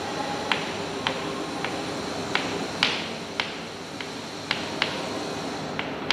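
Chalk writing on a blackboard: sharp taps as the chalk strikes the board, at irregular intervals of roughly two a second, over a faint hiss.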